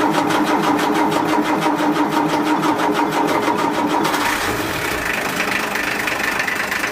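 A 110 hp six-cylinder Mercedes marine diesel running with an even rhythmic beat just after a cold start. About four seconds in the beat fades and the sound turns steadier, with a higher note coming in.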